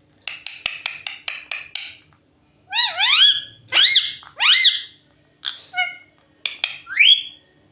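Pet parrot calling: a quick run of about ten short chattering notes, then three loud calls that rise and fall in pitch, a few more short notes, and a final rising call near the end.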